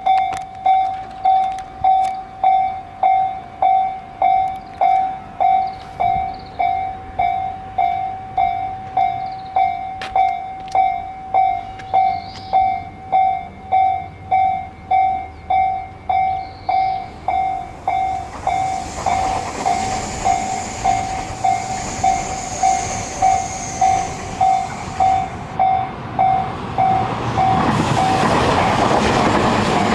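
Japanese level-crossing warning bell ringing its steady 'kan-kan' strokes, a little under two a second. About two-thirds of the way through, an approaching train's running noise rises under it; near the end the bell stops and the passing train is the loudest sound.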